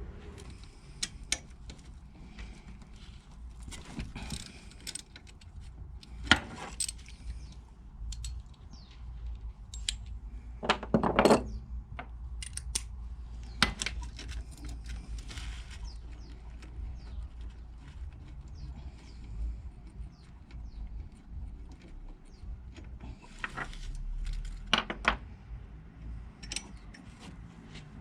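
Metal hand tools and parts clinking and scraping at irregular intervals, with a few louder knocks, over a low steady hum.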